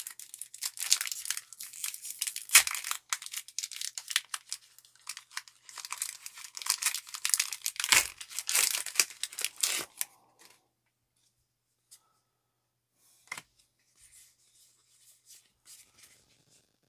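A Pokémon trading card booster pack's foil wrapper being torn open across the top and crinkled as it is pulled apart, for about ten seconds with a couple of dull bumps. After that only faint rustles.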